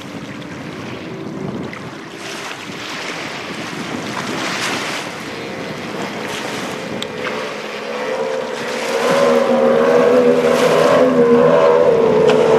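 Racing powerboats' engines running at speed, with the engine drone growing much louder about nine seconds in as a boat comes closer. Gusts of wind on the microphone.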